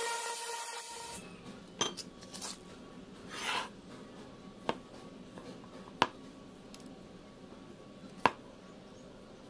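The tail of a musical intro sting fades out in the first second. Then come a few sharp, separate small metallic clicks and one short scrape as a steel flat bar and a tape measure are handled on a workbench, the two loudest clicks near the middle and near the end.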